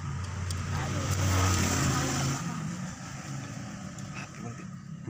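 Diesel truck engine idling steadily, with a louder, rushing swell from about one to two and a half seconds in.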